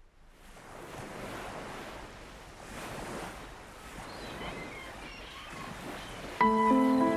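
Sea surf washing in swells that rise and fall, fading in from silence, as the opening of a music track; about six seconds in, loud held musical notes come in over it.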